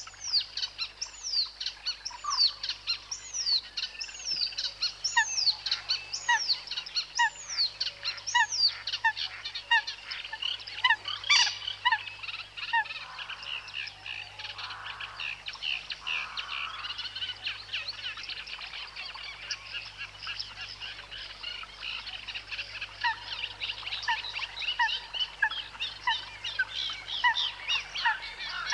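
A chorus of birds calling. For the first nine seconds or so, a high down-slurred call repeats about every 0.7 s along with short lower notes, over a dense, continuous chirping.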